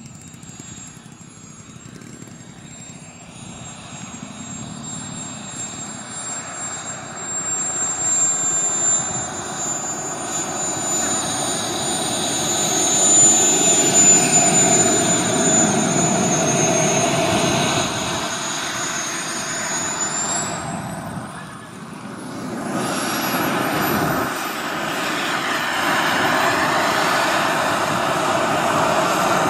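Model jet turbines of a giant-scale radio-controlled Avro Vulcan: a steady high whine over a rushing jet noise that grows louder as the model comes close and rolls along the runway. About two-thirds of the way through the sound briefly drops away, then the whine climbs sharply in pitch as the turbines spool up to higher power.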